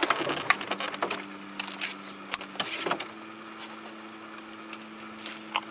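Light clicks and rattles of a hard plastic fishing lure and its hooks as they are worked free of a pacu's mouth by hand, busiest in the first three seconds. Under them a steady motor hum steps up in pitch about three seconds in.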